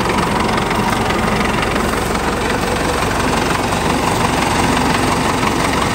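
Sonalika 750 tractor's turbocharged diesel engine running steadily, heard up close beside the open engine bay.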